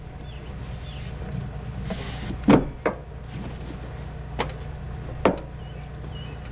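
Four sharp plastic knocks and thumps, the loudest about two and a half seconds in, as a ribbed rubber air intake tube is forced onto a pickup truck's plastic airbox, over a steady low hum.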